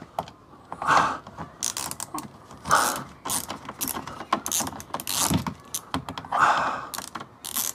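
Socket ratchet on an extension clicking in several short runs as it undoes an undertray bolt.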